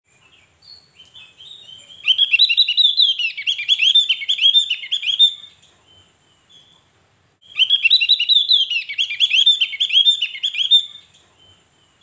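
Javan grey-throated white-eye (opior jawa) singing: two long bursts of rapid, high notes, each about three and a half seconds, with a few soft short calls before the first.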